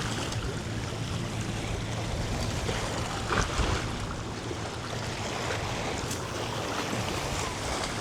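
Wind blowing across the microphone with small bay waves lapping at the shore: a steady rushing noise with a low rumble and a brief louder gust about three and a half seconds in.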